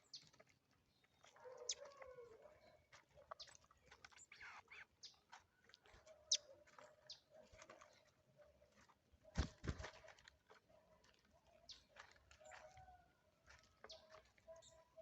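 Birds feeding on the ground: faint scattered pecking and scratching clicks, with a short burst of wing flaps about nine and a half seconds in and a low call near the start.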